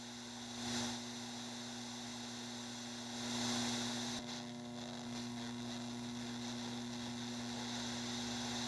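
Steady electrical mains hum under a bed of static hiss. The hiss swells briefly just under a second in, and again from about three to four and a half seconds in.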